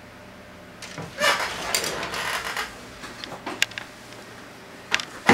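Rustling and clattering of wire and small electronic parts being handled at a workbench, with several sharp clicks near the middle and end.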